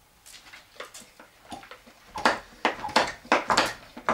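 Plastic trigger-spray plant mister being squeezed over and over, short spritzing strokes at about three a second that grow louder about two seconds in. The sprayer is broken.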